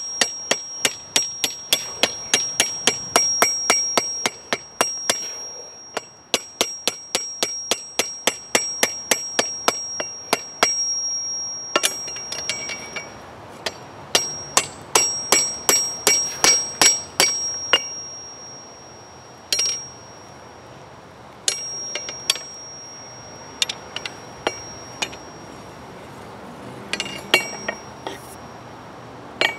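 Hand hammer striking a red-hot steel bar on the horn of an anvil, bending it: quick runs of blows, about three a second, with the anvil ringing at a high pitch between them. After the first half the blows thin out to a few scattered strikes.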